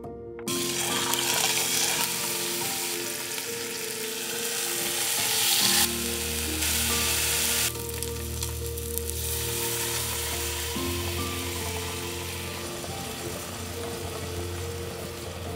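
Food frying in hot oil in a pan, a steady sizzle, louder in the first several seconds, over soft background music.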